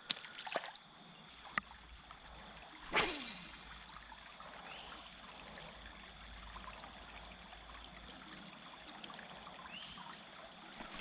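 Creek water trickling steadily, with a few light clicks in the first two seconds and a short, louder rush of noise about three seconds in.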